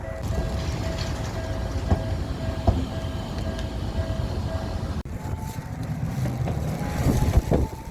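A Tokyu Setagaya Line tram running through a level crossing with a low rumble. For about the first five seconds a level-crossing warning bell sounds in repeated pulsed tones; these cut off abruptly, and a steady whine continues over the tram's running noise.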